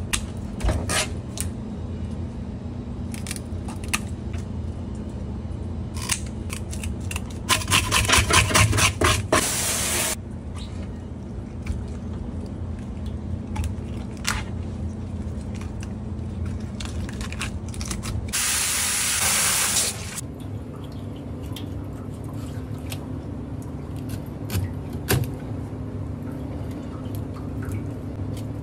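A sink sprayer hissing in two bursts while a fish is cleaned, a short one about a third of the way in and a two-second one about two-thirds in. Just before the first burst there is a run of rapid strokes. Short clicks of knife and scissors and a steady low machine hum run underneath.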